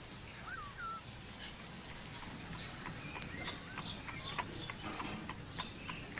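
Faint short chirping calls: a few quick hooked chirps in the first second, then a run of brief high chirps or ticks through the rest.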